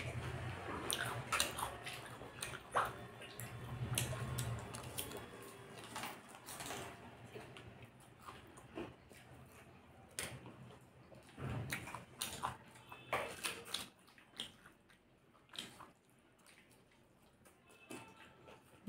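A person eating chow mein noodles up close: wet slurping and chewing mouth sounds, with scattered sharp clicks of a fork against the foil-lined plate.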